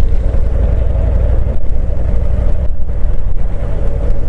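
Harley-Davidson Street Glide Special's V-twin engine running steadily while the bike is ridden along, a continuous deep rumble.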